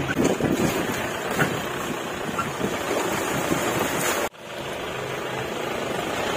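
Jeep driving, its engine and vehicle noise running steadily, broken by a sudden brief drop-out about four seconds in.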